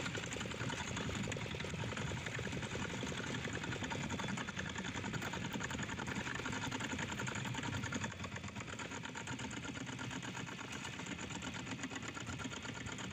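Small fishing boat's engine running steadily under way, a fast, even mechanical rattle.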